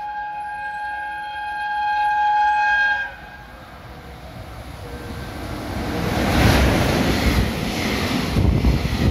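JR Freight EF210 electric locomotive sounding one long horn blast that gets louder as it approaches and cuts off about three seconds in. The freight train then runs through the station, its rumble and the clatter of the container wagons' wheels building to a loud pass-by near the end.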